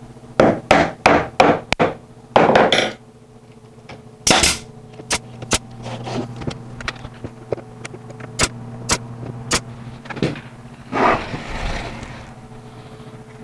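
Pneumatic brad nailer firing nails into pallet wood: a quick run of about four shots early on, then single shots spaced about a second apart, with a short hiss of air near the end, over a steady low hum.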